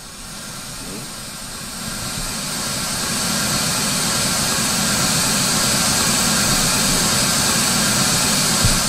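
White noise from an Android signal-generator app, fed through a mixer, rising in level over the first few seconds as the mixer fader is brought up, then a steady, even hiss that cuts off at the very end.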